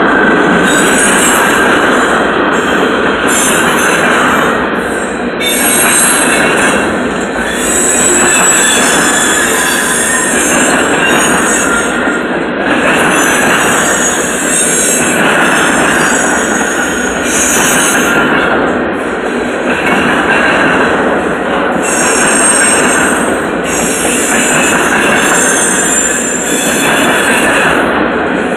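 Freight train cars rolling past at close range: a steady rumble of steel wheels on rail, with high-pitched wheel squeal that comes and goes every second or two.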